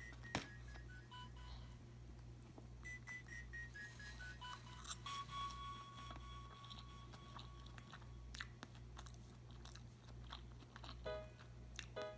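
Close-miked chewing and mouth sounds: scattered small crunches and clicks of food being eaten. Quiet background music with a steady bass pulse and held melody notes runs underneath.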